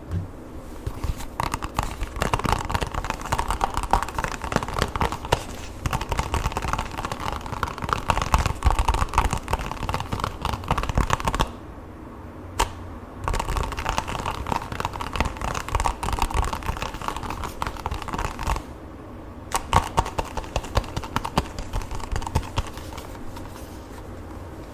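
Lotion squished and rubbed between hands close to the microphone: dense, sticky crackling in three spells broken by short pauses.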